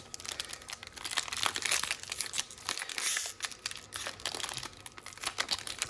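Plastic-wrapped trading card pack being crinkled and torn at while trying to open it, an irregular run of crackles.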